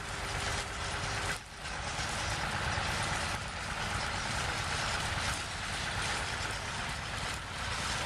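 Wind rushing over the microphone: a steady noise with a short lull about a second and a half in.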